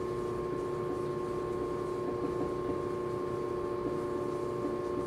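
Steady electrical or room hum with a few constant pitched tones, even throughout. No distinct marker sound stands out.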